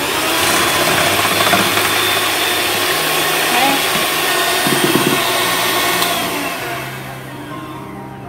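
Electric hand mixer running at medium speed, its beaters whisking egg whites in a stainless steel bowl. The motor starts with a short rising whine, then runs as a steady whir that fades away over the last couple of seconds.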